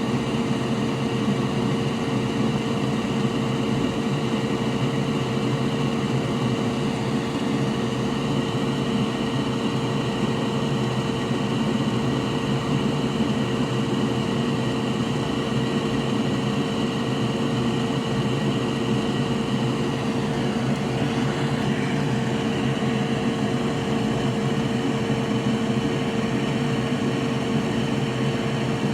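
Steady hum of a small electric fan or blower motor, with a constant tone and no change in speed.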